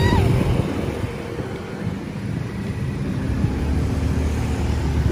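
City street traffic: motor vehicle engines running and passing as a continuous low rumble, swelling toward the end.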